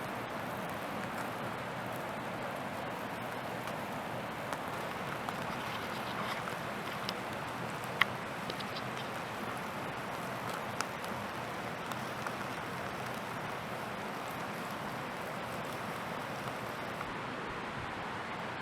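Wood campfire burning with a steady hiss and scattered sharp crackles and pops, one louder pop about eight seconds in.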